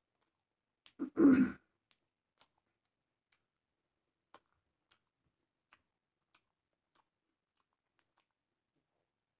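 A man eating makes one short, loud throaty sound, like clearing his throat, about a second in. After it come only faint, scattered mouth clicks of chewing.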